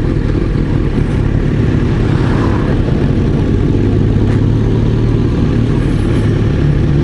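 Kawasaki Z900RS inline-four engine with a titanium full exhaust, running steadily while the motorcycle is ridden on the road.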